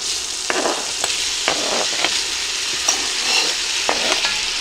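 Diced raw chicken breast sizzling as it drops into hot butter and oil in a Dutch oven, the sizzle swelling as the pieces land. About half a dozen short scrapes and knocks cut through it as a knife pushes the chicken off a plastic cutting board.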